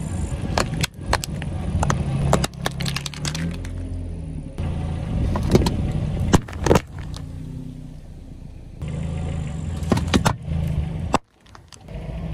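A slowly rolling car tyre crushes plastic candy containers and an aluminium drink can on asphalt. Repeated sharp cracks, crunches and pops sound over the low, steady hum of the car's engine.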